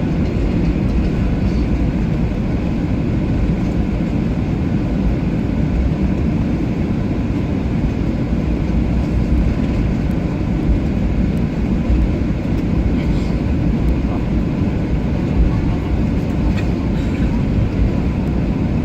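Steady low rumble of a jet airliner's engines and airflow heard from inside the passenger cabin, with no rise or fall in pitch.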